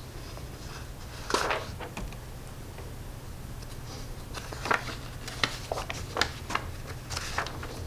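Room tone: a steady low hum with scattered small clicks and rustles, the clearest about a second and a half in.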